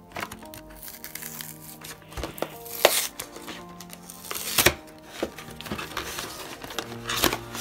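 The cardboard box and plastic insert of a Pokémon TCG battle deck being pulled open by hand, crinkling, with a few sharp snaps, the loudest about 3, 4.5 and 7 seconds in. Background music plays underneath.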